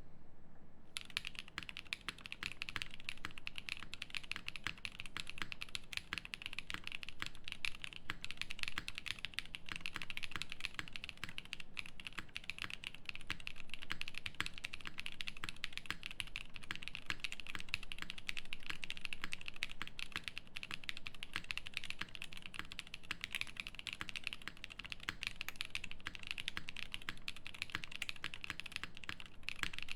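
Continuous typing on a Terasu mechanical keyboard with lubed JWK Black linear switches fitted with NK Cream stems, mounted on a polypropylene plate, under GMK keycaps: a dense, steady stream of keystroke clacks that starts about a second in.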